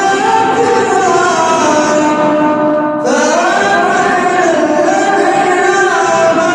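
Male voice reciting the Quran in melodic tajweed style, drawing out long ornamented notes. The voice breaks off briefly about three seconds in, then comes back on a rising pitch.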